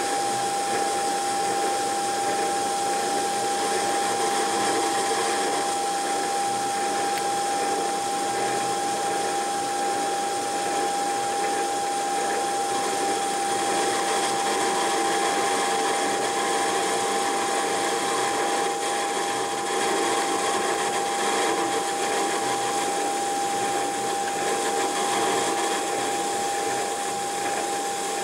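Metal lathe running, its cutting tool turning down a mild steel bar. It gives a steady whine over an even hiss, with no change in speed.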